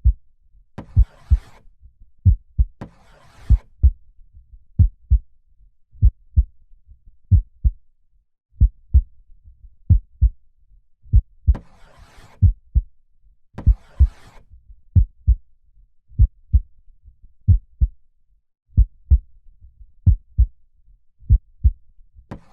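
Slow heartbeat: paired lub-dub thumps repeating evenly, about one beat every 1.3 seconds. Soft breaths in and out rise over it twice, about a second in and again around the middle.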